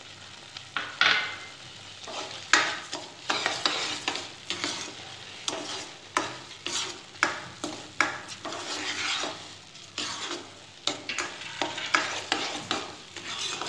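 A spatula stirring and scraping semolina halwa around a dark wok in repeated strokes, about one to two a second, starting about a second in. The sugar just added is being worked in while it melts into the hot semolina.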